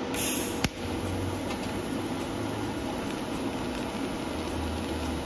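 DC TIG welding arc from a Taiwan Power TIG-200ADP inverter welder (no pulse, 4T) on a steel tube. It opens with a brief high-pitched hiss from the arc start, then a sharp click, and settles into a steady, even hiss with a low hum underneath.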